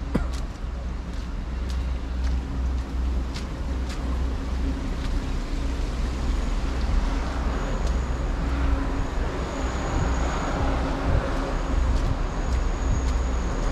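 Steady outdoor rumble, swelling in the second half, with light footsteps on a wet paved path about once a second early on.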